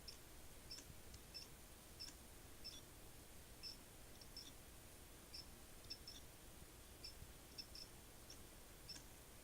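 Faint, irregular clicking from inside an all-in-one PC, about two short clicks a second over a low hum: the abnormal noise of a failing computer.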